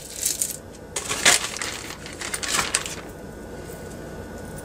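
Metal costume jewelry clinking and a clear plastic zip-top bag crinkling as a hand rummages and pulls out a chain bracelet. The rustling and clinking comes in a few bursts, loudest a little over a second in, and it is quieter after about three seconds.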